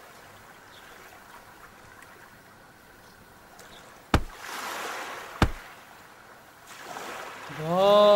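Faint wash of sea surf and wind hiss on the beach, broken by two sharp knocks about a second and a half apart. Near the end comes a short pitched sound that rises and then falls.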